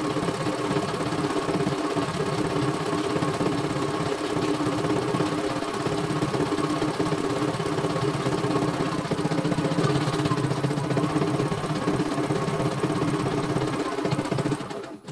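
CNY E900 computerized embroidery machine stitching a test design, the needle mechanism running steadily at speed while the hoop frame moves; it stops near the end.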